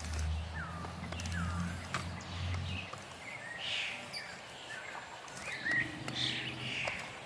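Birds chirping and calling in repeated short, curving notes, over a low steady hum that fades out about three seconds in, with a couple of sharp clicks.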